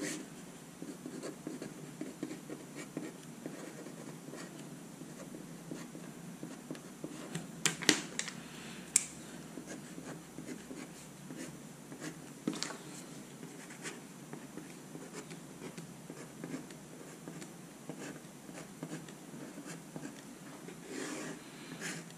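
Fineliner pen writing on paper over a clipboard: soft scratching strokes of handwriting, with a few sharp taps, the loudest about eight to nine seconds in.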